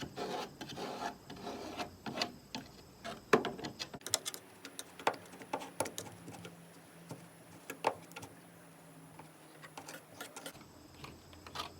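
Scratching and scraping as packed dirt and mud are dug out of a sliding window's channel. It is dense for about four seconds, then thins to scattered sharp clicks and taps.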